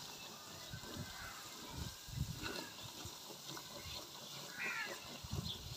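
A wooden-handled ladle stirring a thick masala frying in ghee in a clay handi, with soft knocks of the ladle against the pot and a faint sizzle. A short chirp sounds a little past four and a half seconds in.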